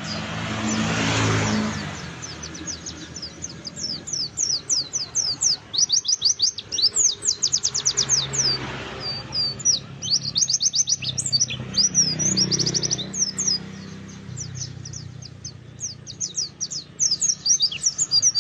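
Pleci (white-eye) singing energetically in long, fast runs of high, sharply falling chirps with short pauses between runs. A low hum swells and fades underneath, loudest about a second in.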